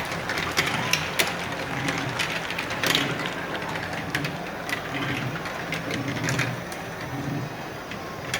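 Marbles clicking sharply and irregularly as they collide with each other and the track, over a low, repeating background rhythm.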